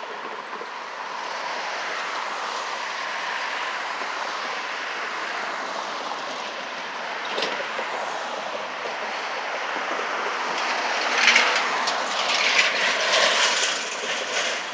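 Road traffic passing on a multi-lane street: a steady hiss of tyres and engines. It gets louder about eleven seconds in, with a clatter of knocks as a flatbed truck drives by close to the microphone.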